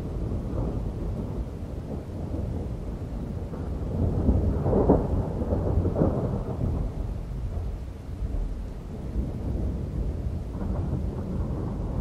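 Thunder rumbling continuously through a thunderstorm, swelling to a louder crackling peak about five seconds in before easing back.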